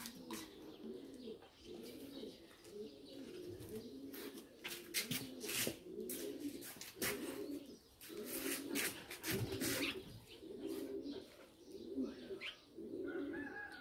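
Pigeons cooing, a steady run of low, repeated coos, with scattered rustles and clicks over them.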